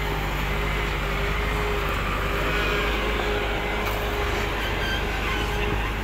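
Diesel engine running steadily at idle: a continuous low rumble with a faint steady hum.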